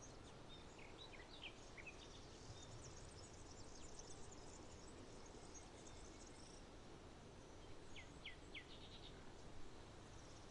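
Faint outdoor ambience: small birds chirping over a steady low background hum. A few short chirps come about a second in, a run of faint high twittering follows, and three quick falling notes come near the end.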